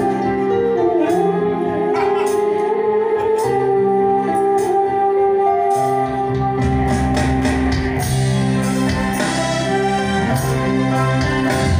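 Instrumental band music played live: electric bass, electric guitars, a bamboo flute (suling) carrying a sliding melody, and kendang drum strikes. From about six seconds in the bass fills out and the percussion gets busier.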